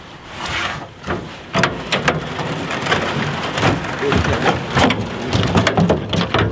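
Thin skim ice on the creek crackling and breaking up around a small boat and a pole: a dense, irregular run of sharp clicks and crunches.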